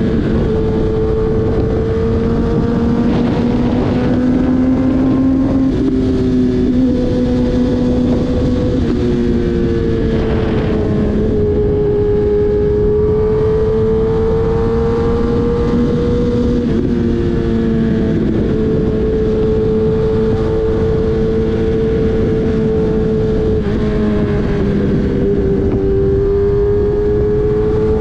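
Kawasaki Ninja ZX-10R's inline-four engine running at a steady cruise, its pitch shifting in small steps several times, with wind noise.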